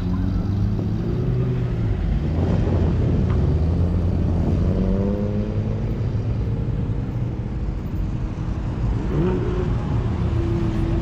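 Car engines running and revving as cars drive past, the engine pitch rising and falling several times, with a steady higher engine note coming in near the end.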